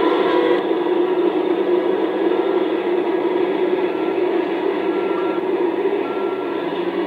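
Steady engine drone from heavy machinery, muffled and mixed with tape hiss; the sound turns slightly duller about half a second in.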